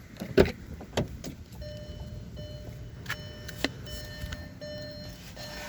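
A few sharp clicks, then a car's warning chime sounding over and over in an even rhythm, a little faster than once a second.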